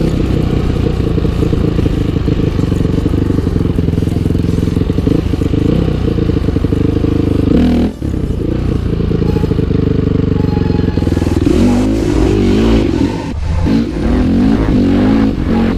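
Dirt bike engine running while riding, steady at first, then revving up and down repeatedly over the last few seconds. It drops out briefly about eight seconds in.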